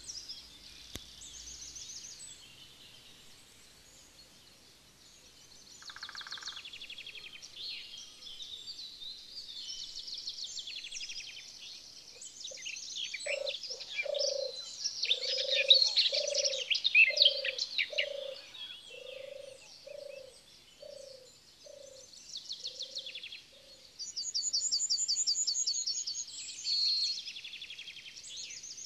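Dawn chorus of songbirds: many overlapping high chirps, trills and whistles, loudest in the middle, with a fast, high trill near the end. Through the middle runs a series of about a dozen low hooting notes, about one a second, growing fainter.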